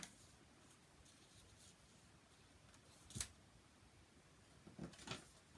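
Near silence, broken by faint sounds of paper and cardstock being handled on a tabletop: one short rustle about three seconds in and two softer ones near the end.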